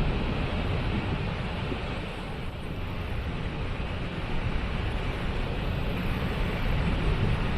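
Waterfall: a steady rush of falling water, heavy in low rumble.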